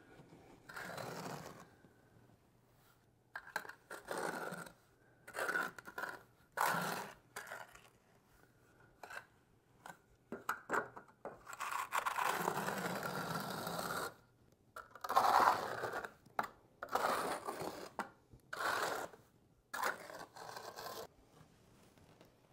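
Steel notched trowel scraping and spreading thin-set mortar across a wooden subfloor in repeated strokes of uneven length, with one longer stroke about twelve seconds in.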